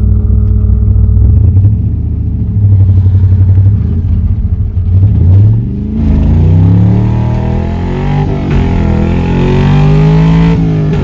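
Carbureted 4.8-litre V8 of a 1999 Chevy S10 heard from inside the cab, running at a steady drone. After a gear change on the four-speed manual about six seconds in, the engine note climbs as the truck accelerates, then drops again near the end at the next shift.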